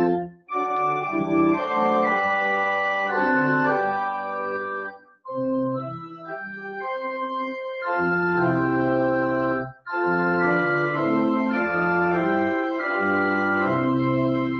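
Church organ playing a slow hymn tune in sustained chords, with brief breaks between phrases about every five seconds.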